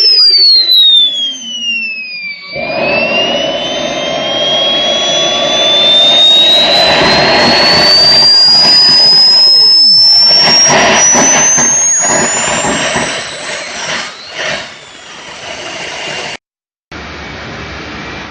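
RC model jet turbine running: its high whine falls in pitch for about two seconds, then a sudden rush of exhaust noise comes in as it is throttled up, the whine climbing steadily to a very high pitch over about ten seconds before easing back. The sound cuts out for a moment near the end.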